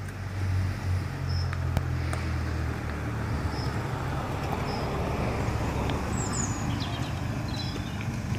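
A car's engine running as it drives along, with a steady low rumble, and a few short, high bird chirps.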